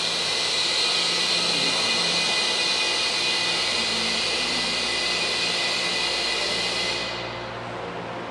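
Steady loud hiss of rushing compressed air, easing off about seven seconds in.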